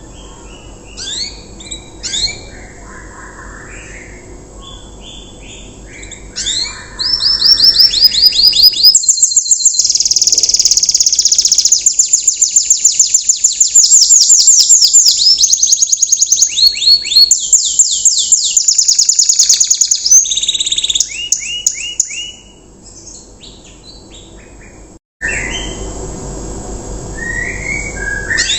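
A young domestic canary singing: scattered high chirps and whistles, then from about seven seconds a long, loud run of rapid, high trilled notes lasting some fifteen seconds — the fast 'riwikan' rolling song — before it eases back to softer, scattered notes.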